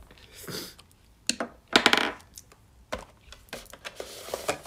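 Clear plastic food containers being handled and moved on a table: a string of short, sharp plastic clicks and rattles at irregular intervals, about half a dozen in a few seconds.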